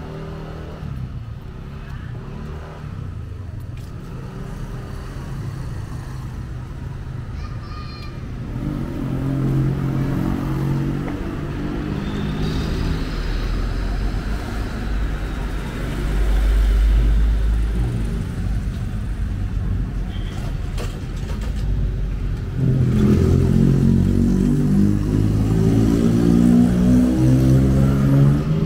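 Street traffic: motor vehicles passing along the road, engines rising and falling, with a heavy low rumble about halfway through.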